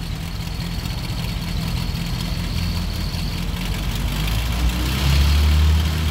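Willys jeep's Go-Devil four-cylinder flathead engine running at idle in first gear, with the transmission driving a Koenig PTO winch. About five seconds in, the engine note gets deeper and louder as the winch starts to pull.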